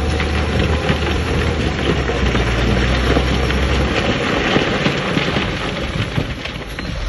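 Dense crackling clatter of rock and gravel tumbling and sliding, over the low drone of a heavy diesel machine's engine. The engine drone drops away about four seconds in while the clatter goes on.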